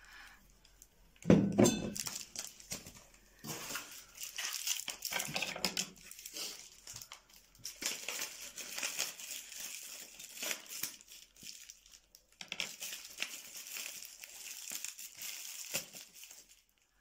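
Plastic packaging crinkling and rustling as beer bottles are unwrapped by hand, with a louder thump about a second in as a glass bottle is set down on the table.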